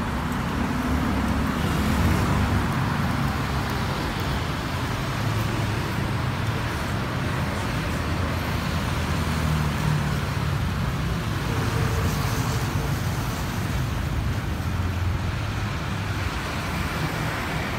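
Steady street traffic: cars and motor scooters driving past, a continuous low engine-and-tyre rumble.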